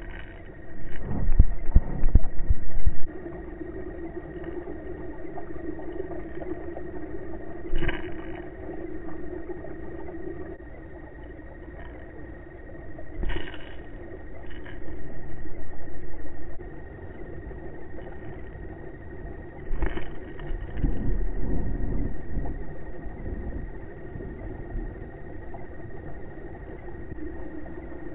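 Steady underwater hum and rumble with a thin high whine held over it, broken by heavy low thumps in the first three seconds and again a little after twenty seconds, and a few short sharp clicks.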